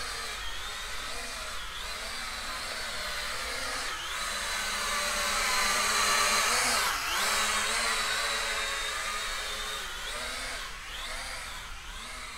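E99 K3 Pro toy quadcopter's propellers whining in flight, the motors' pitch sliding up and down as it climbs and corrects its position. It grows louder to a peak about halfway through, then fades.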